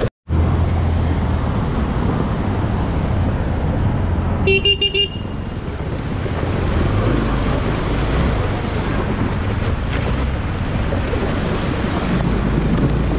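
Motorcycle under way with a steady engine hum and wind rush. About four and a half seconds in, the horn gives a quick series of short toots.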